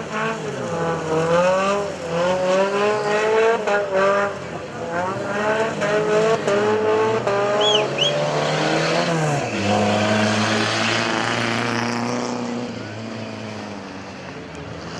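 Off-road race vehicle's engine revving hard, its pitch climbing and dropping again and again as it works through the course. Near the middle come two short, high chirps. After about ten seconds the engine settles to a steadier, lower note and fades.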